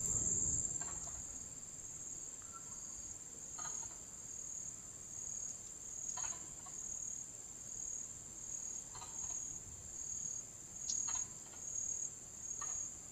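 Insect chorus of crickets: a steady high-pitched trill that pulses about one and a half times a second, with a few faint short taps here and there.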